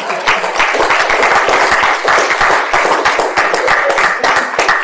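An audience applauding: many hands clapping together.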